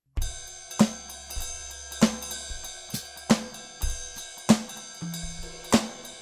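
2Box Drumit 5 MKII electronic drum kit playing a steady beat that starts suddenly: snare hits about every 1.2 seconds over bass drum and steadily ticking hi-hat and cymbal.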